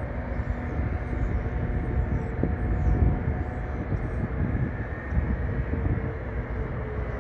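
Airbus A300 twin-engine jet airliner rolling out on the runway just after touchdown: a steady, distant rumble of the jet engines, with faint steady tones riding on it.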